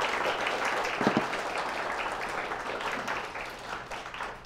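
Audience applauding, a dense patter of many hands clapping that fades toward the end, with a brief low sound about a second in.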